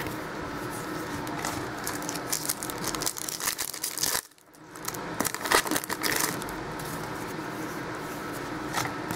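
Hands handling trading cards and foil pack wrappers, making crinkling and small sharp clicks over a steady hiss. The sound cuts out briefly a little after four seconds in.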